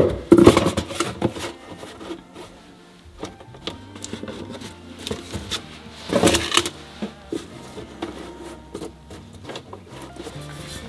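Cut-down paper milk cartons being handled, knocked and slid against one another on a cabinet shelf, with a sharp knock at the start and a louder scuffing rustle about six seconds in. Soft background music plays underneath.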